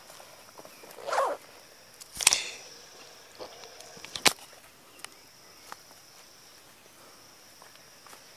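Footsteps and the rustle and scrape of brushing through grass and undergrowth on a steep, rough forest trail, with a loud scrape just after two seconds and a sharp click a little after four. A faint steady high-pitched hum runs behind.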